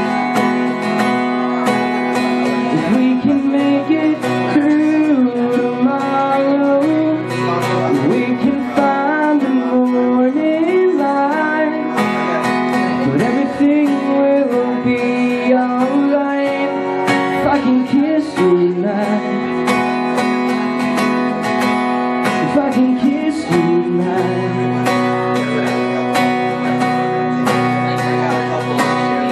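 Solo acoustic guitar strummed in steady chords through an instrumental passage of a song, with a wordless, wavering vocal line over the chords for much of the first two thirds.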